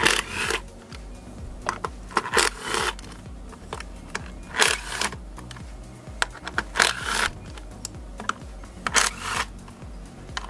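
Cordless power driver spinning out ignition-coil bolts in short bursts, about five runs of half a second each, roughly two seconds apart, with small clicks between them.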